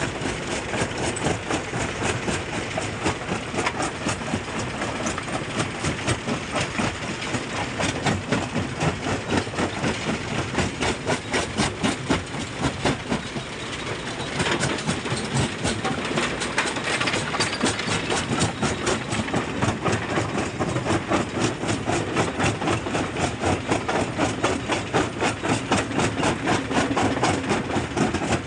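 Jaw crusher running: its ribbed jaw plates work rock in the crushing chamber with a fast, regular knocking beat, the rock cracking and grinding as it is broken down.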